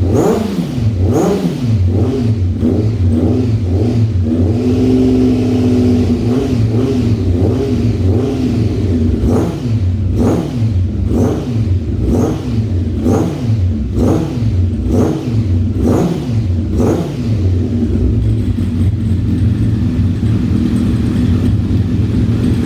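Honda CB1000SF's inline-four engine revved through an aftermarket silencer with quick throttle blips, each a rise and fall in pitch about once a second, broken by a short steady hold at higher revs a few seconds in. It settles to a steady idle for the last several seconds.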